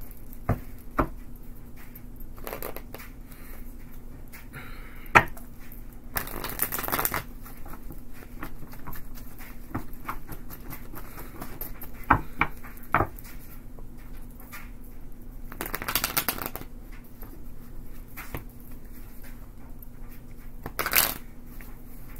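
A deck of tarot cards being shuffled by hand: scattered soft ticks and taps of cards knocking together, with three longer rustling bursts of about a second each as the cards run through the hands.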